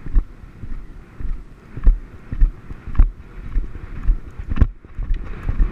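Horse cantering on grass: regular hoofbeat thuds about twice a second, with wind noise on the microphone.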